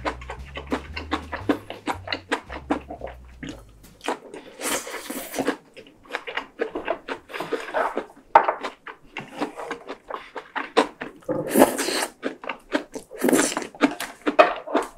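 Close-miked chewing of a rice-paper spring roll: rapid wet mouth clicks and smacks, with a few loud breathy exhales in between. Background music with a bass line stops about four seconds in.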